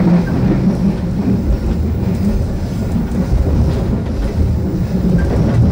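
Steady low rumble of a passenger train carriage running on the track, heard from inside the business-class coach of the Malabar train.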